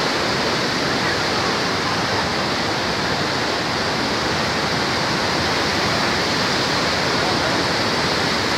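Steady rushing noise of the flooded Saptakoshi River pouring through the barrage.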